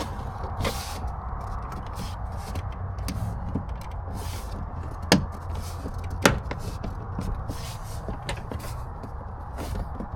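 Hands working the dash cam wire and its rubber grommet into the rear trim of a car: rustling and handling noises, with two sharp clicks about five and six seconds in, over a steady low hum.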